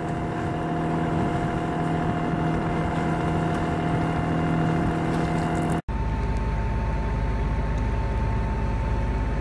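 Sailboat's inboard engine running steadily while motoring under way, a constant hum over the rush of wind and water. About six seconds in the sound cuts briefly and resumes with a slightly different pitch.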